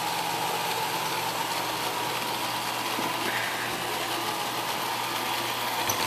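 iRobot Roomba robot vacuum running on carpet: a steady whir of its vacuum motor and brushes with a faint high tone.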